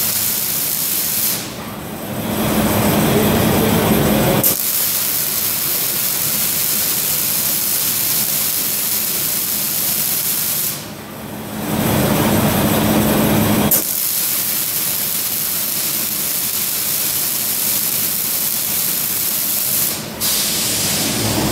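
Several welding arcs of an automatic cuplock scaffolding welding machine hissing and crackling together. Twice, about every nine seconds, the welding stops for a couple of seconds, leaving a lower machine hum, and starts again with a sharp click; near the end it stops once more.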